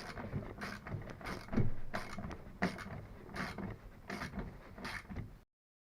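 Hand ratchet clicking in short, irregular strokes as the seat's mounting nuts are done up snug. Cuts off suddenly about five and a half seconds in.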